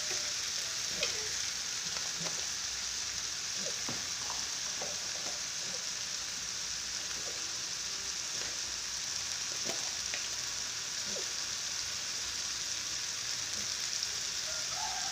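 Ground chili paste for sambal balado sizzling steadily in oil in a wok over a gas flame, with scattered small pops and crackles.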